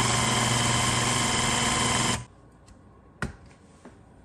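Electric blender motor running steadily while mincing raw chicken, switched off abruptly about two seconds in. A single sharp click follows about a second later.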